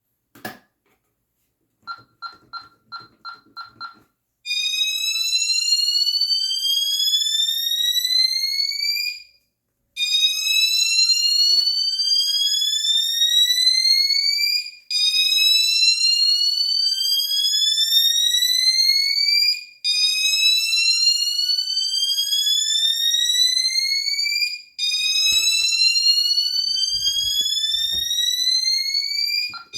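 Home security system alarm test: a quick run of about seven beeps about two seconds in, then the electronic siren sounds a rising wail. Each sweep climbs for about five seconds and then restarts, five times over.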